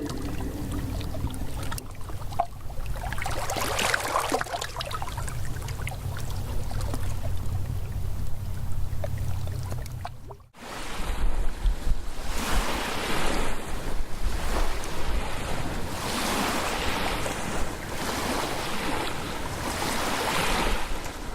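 Two ambience recordings in a row. First, a steady low hum under a noisy wash. Then, after a brief gap about ten seconds in, surf: waves swelling and washing in every second or two.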